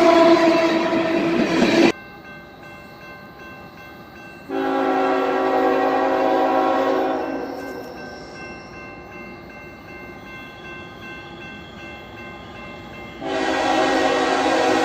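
Locomotive air horn, a third-generation Nathan K5HL five-chime, sounding in blasts. One blast cuts off about two seconds in, a second starts a couple of seconds later and fades after about three seconds, and a third begins near the end.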